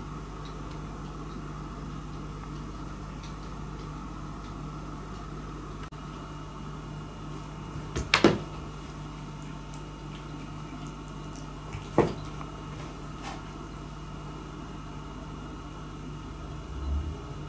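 A cat playing with a cotton swab on a wooden floor: a few sharp knocks, a quick cluster about eight seconds in and a single one about four seconds later. Under them runs a steady room hum.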